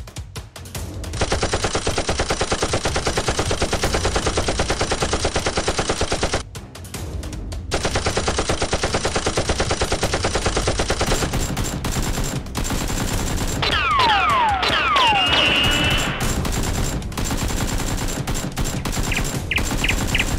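Rapid automatic gunfire, a sound effect dubbed over a Nerf blaster fight: one long burst of about five seconds, a short break, then another of about three seconds. After that comes more scattered gunfire with a few falling whistling tones.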